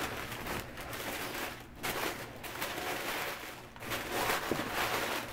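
Wrapping paper rustling and crinkling in irregular surges as it is handled and pressed into a cardboard shoebox.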